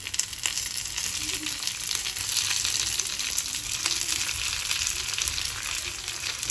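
Sliced onions frying in hot oil in a pan: a steady, crackling sizzle. Tomato pieces are being added as they are cut, and the sizzle grows louder over the first couple of seconds.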